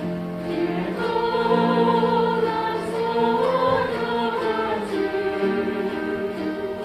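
A chromaharp ensemble playing, with a group of voices singing along in held, wavering notes.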